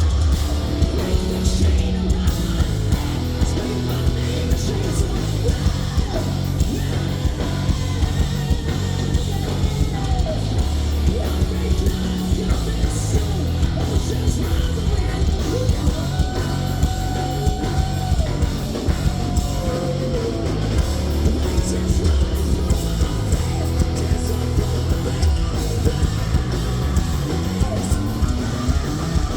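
Live hard rock band playing loud: distorted electric guitars and drums, with a voice singing over them.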